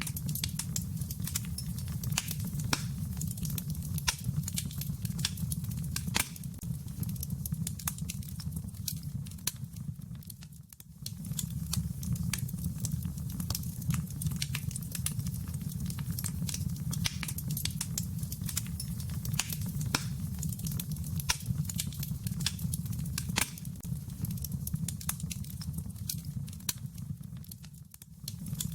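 Wood fire crackling in a fireplace: a steady low rumble of flames with scattered sharp pops and crackles. It dips briefly twice.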